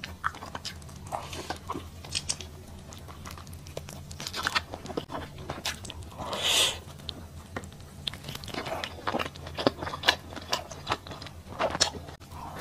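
Close-miked biting and chewing of a grilled sweet-potato-starch sheet (kao shao pi) with pork intestine, heard as many short mouth clicks and smacks. There is a louder bite a little past halfway.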